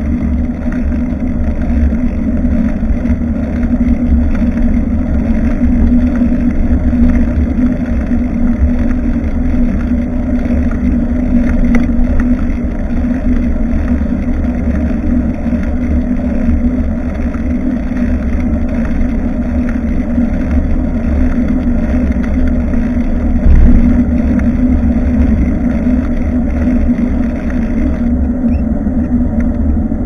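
Wind buffeting and rumbling on a bicycle-mounted action camera's microphone while riding, mixed with tyre and road noise and a steady low hum. A brief louder knock comes about two-thirds of the way through.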